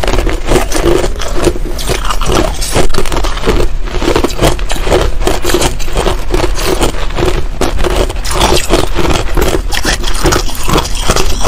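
Crunching of finely crushed ice being chewed, close to the microphone: a dense, unbroken run of loud, sharp crunches with no pause.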